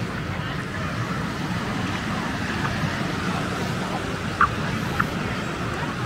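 Steady beach ambience of ocean waves washing ashore under a murmur of distant voices, with two brief high chirps about four and a half and five seconds in.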